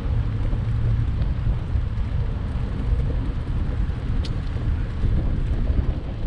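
Steady low rumble of wind buffeting the microphone on a moving bicycle, mixed with road traffic noise from passing cars.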